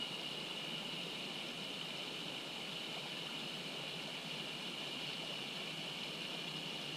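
Mountain stream water rushing steadily, with a steady high-pitched tone held over it.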